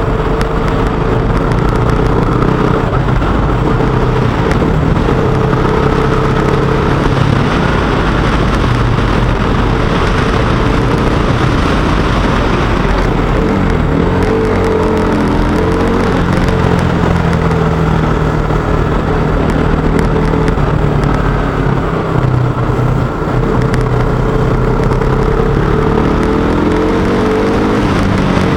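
KTM motorcycle engine running under way, its pitch rising and falling with the throttle on a winding road and climbing near the end. Road and wind noise run underneath.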